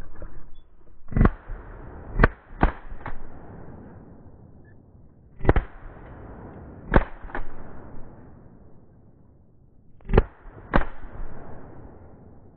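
About eight 12-gauge shotgun shots fired at a passing flock of wood pigeons, several coming in quick pairs less than half a second apart, each trailing off in an echo.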